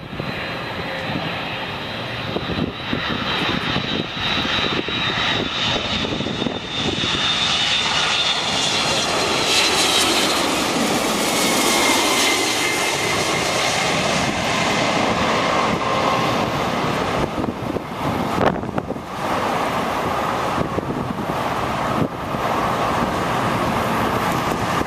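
Boeing 767-300ER jet airliner passing low overhead on final approach, the sound of its two turbofan engines. The sound builds to its loudest as it goes over and stays loud as it moves away, with a high engine whine that slides down in pitch as it passes.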